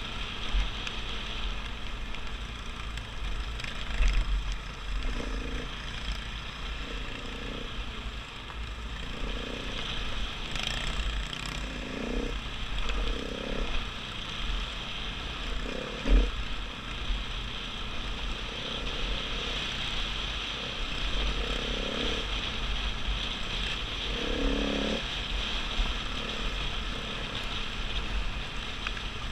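KTM dirt bike's engine running as it rides down a rocky gravel track, with heavy wind rumble on the microphone. There are sharp knocks from bumps about 4 and 16 seconds in.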